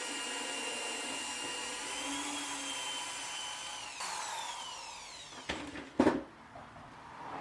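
Electric drill running at steady speed while drilling gas vent holes into a set plaster mould, then released, its motor whine falling as it spins down. Two sharp knocks follow near the end.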